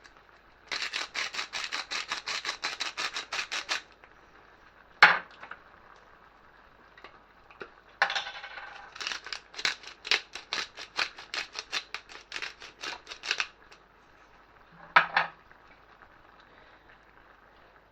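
Salt and pepper mills being twisted: two bouts of rapid, even grinding clicks, each a few seconds long, each followed a little later by a single sharp knock.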